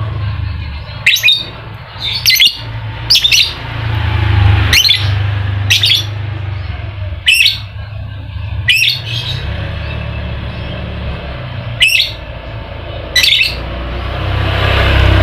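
Lovebird giving short, sharp, shrill chirps, about nine of them spaced a second or two apart, over a steady low hum.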